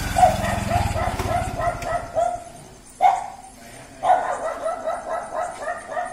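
A dog barking in quick runs of short barks, two to three a second, with pauses between the bouts. A low engine running at the start fades out about a second and a half in.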